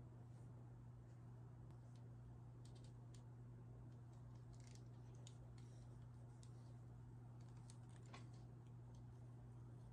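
Near silence: a steady low hum with faint scattered light clicks and rustles from hands handling hair.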